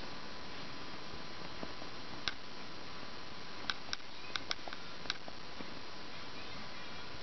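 A makeup sponge dabbing nail polish onto a fingernail: about half a dozen small, sharp clicks spread across the middle, over a steady hiss with a faint high whine.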